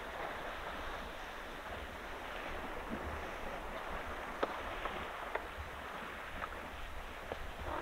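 Steady outdoor noise, much like wind on the microphone, with a few faint ticks in the second half; no clear elephant call.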